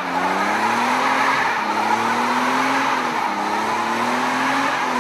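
A BMW doing a burnout: its rear tyre spins and squeals against the tarmac while the engine is held at high revs. The engine note climbs and drops back about every one and a half seconds over the steady tyre screech.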